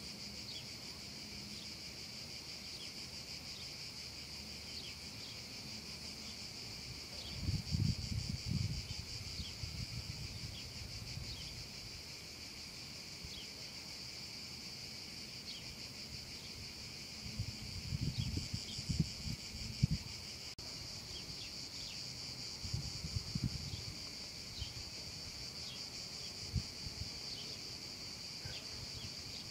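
Cicadas singing in a steady, dense chorus, with short falling chirps scattered over it. A few bursts of low rumble break in, the strongest about a quarter of the way through and again just past the middle.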